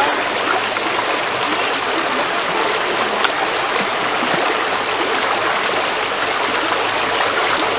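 River water rushing steadily, a constant loud hiss of flowing current.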